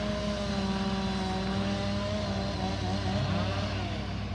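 Engine of tree-clearing equipment running. Over a steady low drone, one engine note climbs, holds and sinks away about three seconds in.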